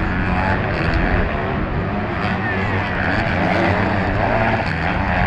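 Several motocross bikes racing around a dirt track, their engines revving up and falling off as they take the turns and jumps.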